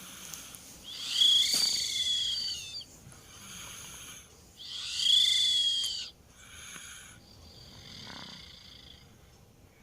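A two-year-old child snoring in deep sleep. Two loud snores about a second in and halfway through carry a high whistle, with softer, quieter breaths between and after them.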